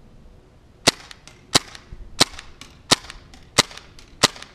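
KWA MAC-11 gas blowback airsoft submachine gun firing on semi-auto: six sharp single shots, evenly paced about two-thirds of a second apart, beginning about a second in, each followed by a fainter click.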